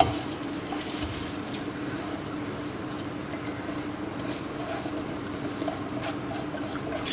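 Soaked, drained basmati rice tipped from a glass bowl into a steel pot of hot masala: a soft patter of wet grains landing, with scattered crackles from the masala, over a steady low hum. The crackles thicken in the second half.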